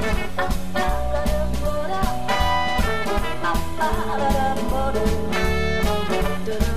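Swing-style backing music with a steady beat, an instrumental stretch without singing.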